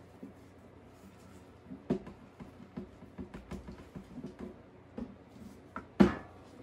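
Loose soil substrate of topsoil, sphagnum moss and dry leaves poured from a plastic tote into a glass tank: soft, irregular pattering and crackling. There is a sharp knock about two seconds in and a louder knock near the end.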